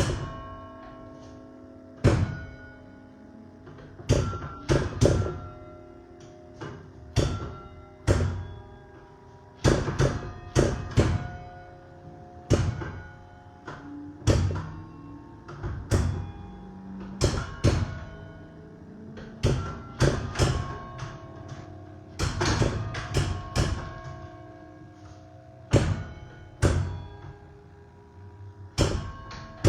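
Church tower bells playing a Christmas carol melody, struck one note at a time, roughly one every second in the tune's uneven rhythm. Each note is a sharp strike followed by a long ringing tone that overlaps the next.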